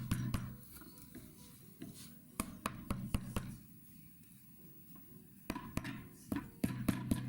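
Light hammer taps on small headed nails being driven into holes in an oak chair frame, in short clusters of a few taps each.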